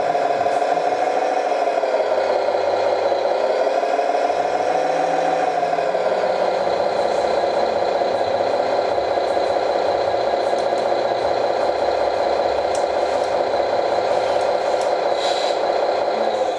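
Engine sound from the RC fire truck model's sound unit, running steadily with a light rattle. Its pitch rises and falls twice in the first few seconds, and it cuts off suddenly near the end.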